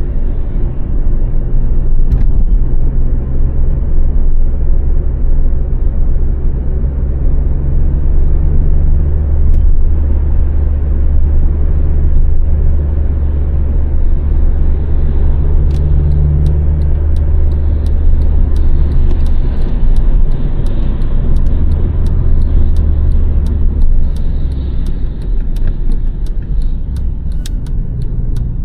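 2006 Honda Civic's 1.8-litre four-cylinder petrol engine and road noise while driving, a steady low drone whose pitch shifts a few times as the speed changes.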